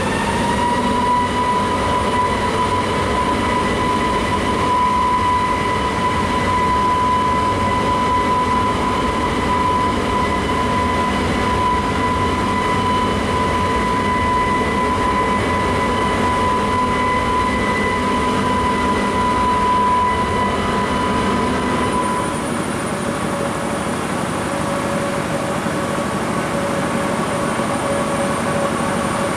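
Airbus A321neo's turbofan engines on the landing roll: a loud jet whine that rises in pitch over the first second, then holds steady over a broad rumble. About two-thirds of the way in, it gives way to a lower steady engine tone as the jet rolls at taxi speed.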